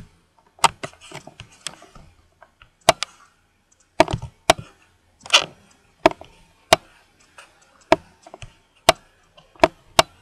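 A series of sharp, irregular taps, one or two a second, with short gaps between them.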